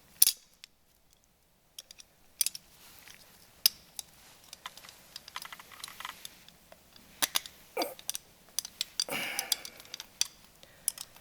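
Irregular light clicks and knocks of hand tools and small metal parts being handled during rear drum brake work, with a sharp click just after the start and a short scraping rustle about nine seconds in.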